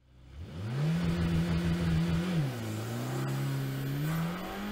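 Car engine revving: it climbs quickly to a steady high pitch, drops about two and a half seconds in as at an upshift, then climbs slowly again.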